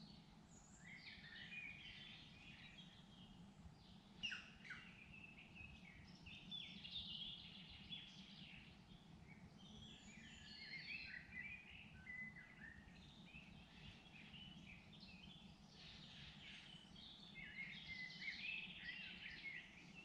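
Several songbirds singing in woodland, their short warbling and chirping phrases overlapping throughout, over a faint low steady hum. One sharp, louder note stands out about four seconds in.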